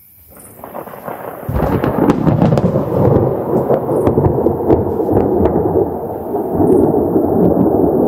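Thunder from a lightning strike: a rumble builds about half a second in, breaks into a loud crash about a second and a half in, then keeps rolling and crackling.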